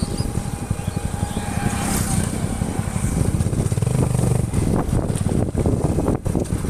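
Motorcycle engine running at low road speed as the bike slows down, a steady rapid low pulsing of the exhaust with road and wind noise.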